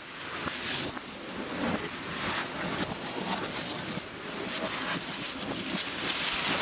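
Leafy branches swishing and rustling as they are swung, mixed with shoes scuffing and stepping on a concrete floor, in irregular bursts.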